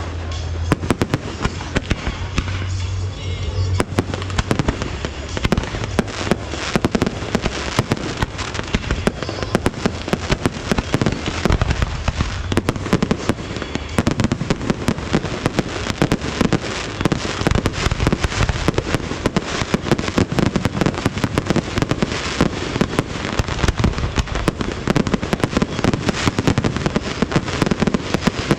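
A fireworks display going off without pause: rapid, overlapping bangs and crackles, with music playing underneath.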